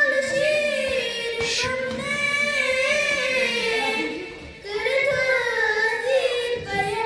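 A young girl singing solo into a handheld microphone, with no accompaniment: long held notes with a wavering pitch and a brief breath about four and a half seconds in.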